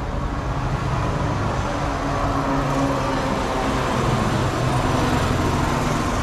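Street traffic: a motor vehicle's engine running on the road, a steady low rumble that gets a little louder through the middle.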